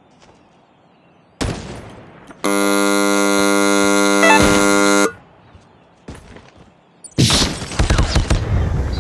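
Edited-in sound effects: a sharp hit about a second and a half in, then a harsh steady buzzer tone lasting about two and a half seconds that cuts off suddenly, and a loud noisy crash-like burst near the end.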